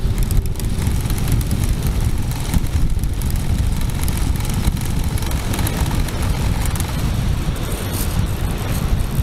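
Steady rush and buffeting of airflow over the microphone of an onboard camera on an RC glider gliding down to land.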